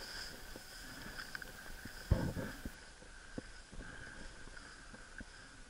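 Faint movement through dry brush: a few soft knocks and rustles, the loudest about two seconds in, over a faint steady high-pitched tone.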